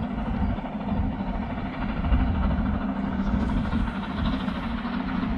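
Narrow-gauge steam locomotive 99 7240-7, a 2-10-2 tank engine, approaching with its train: a steady low hum over a continuous rumble.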